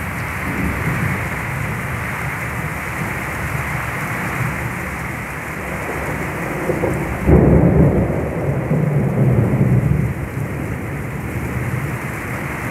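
Heavy rain pouring steadily, with a sudden loud thunderclap about seven seconds in that rumbles on for two to three seconds.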